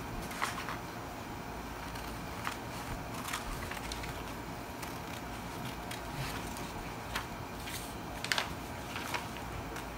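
Sheets of pattern paper rustling and crinkling as they are handled, with a few sharp paper crackles scattered through, over a steady low room hum.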